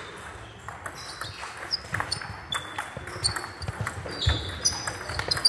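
Table tennis rally: the ball clicking off the bats and bouncing on the table in an irregular run of sharp knocks, with other rallies clicking faintly in the background. Short high squeaks of shoes on the sports hall floor come in between.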